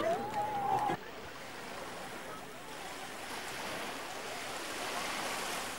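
A voice briefly, then from about a second in an even wash of small waves lapping the shore, with no voices over it.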